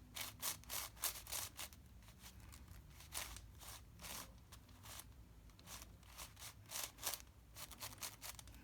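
Plastic 7x7 puzzle cube being turned rapidly, its layers clicking and scraping in quick irregular runs. The cube has just been lubed with DNM-37 and turns better but is still stiff.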